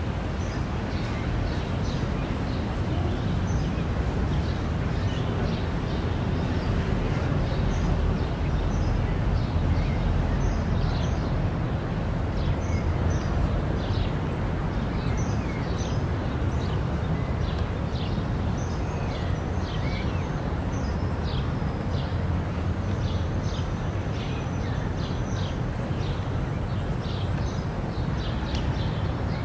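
Outdoor park ambience: a steady low rumble with birds chirping in many short, high notes.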